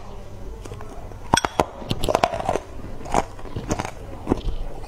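Hard ice cubes dusted with matcha powder being bitten and chewed: a series of sharp cracks and crunches, a dense cluster a little over a second in, then more every half second or so.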